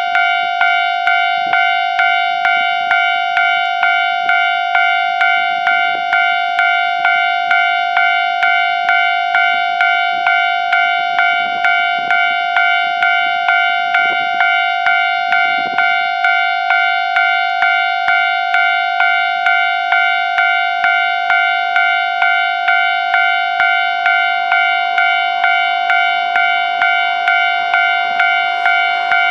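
Japanese railway level-crossing warning bell ringing its electronic two-tone-free single chime over and over, about three strikes every two seconds, each strike fading before the next: the crossing is closed for an approaching train.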